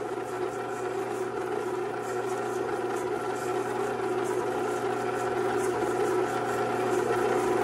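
Pampered Chef Deluxe Stand Mixer motor running steadily on its mix preset, the beater turning ground meat in a stainless steel bowl. The hum grows gradually louder as the mixer ramps up speed.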